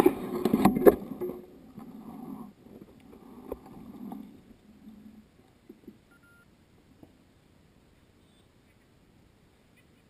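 Mountain bike rolling over a rough dirt trail, tyres crunching and parts rattling with sharp clicks, then coming to a stop about a second in. After that it is nearly quiet, with faint scattered sounds and one short high tone near the middle.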